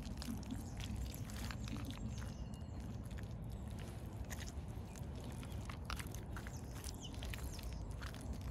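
Reebok Classic trainers squelching and sucking in thick wet mud as they tread and step through it, a string of short wet squelches and clicks over a steady low rumble.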